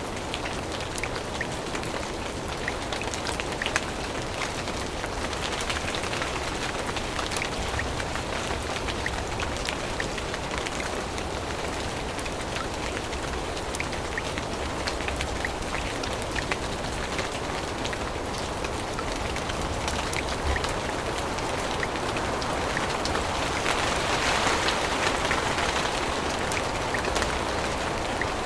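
Rain falling on forest foliage: a steady hiss dotted with many small drop ticks, swelling somewhat louder near the end.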